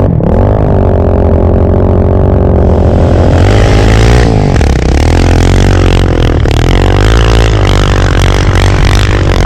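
Single-cylinder four-stroke sport ATV engine running hard, revving up at the start and then rising and falling with the throttle. From about three seconds in, a loud rushing hiss joins it.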